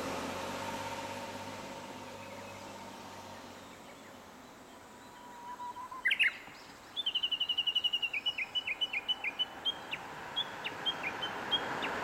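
Japanese bush warbler calling: a short, sharp song phrase about six seconds in, then a long run of rapid, repeated high notes that space out toward the end, over steady outdoor background noise.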